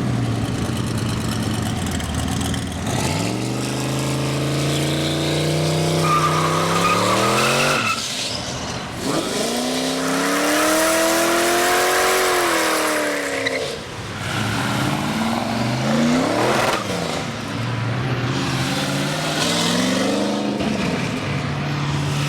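Car engine accelerating hard up through the gears. The pitch climbs and drops back at each upshift, about 8, 14 and 17 seconds in, then settles into a steady cruise.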